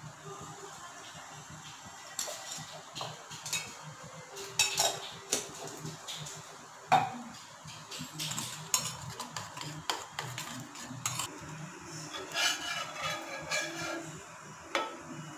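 Kitchen utensils clinking and scraping against a non-stick frying pan and a steel bowl, with a few sharp clinks spread out and a denser stretch of scraping near the end as a spatula is slid under a slice of bread on the pan.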